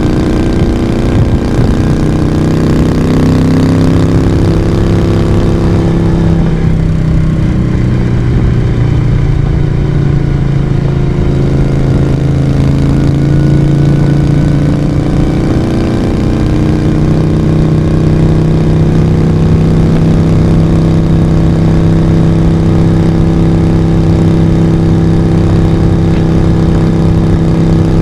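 Moto Guzzi V35's vintage V-twin engine and exhaust running under way. The revs drop about six seconds in, hold lower for a while, then rise again around sixteen seconds and stay steady.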